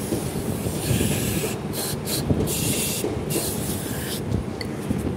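Aerosol throttle body cleaner sprayed onto a throttle body in a series of short hissing bursts over a steady low rumble.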